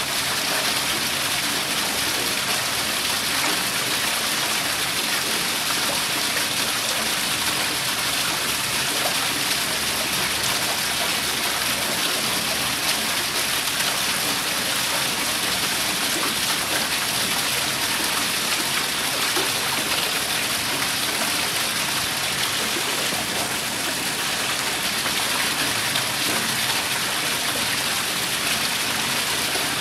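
Water pouring steadily from a wall outlet into a pool, an even, unbroken splashing.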